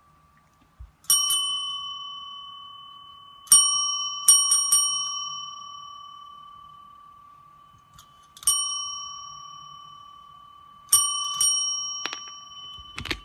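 A chrome service bell struck again and again, each strike a bright ding that rings on and slowly fades. There are single dings a second in, about eight seconds in and near the end, and a quick run of three about four seconds in.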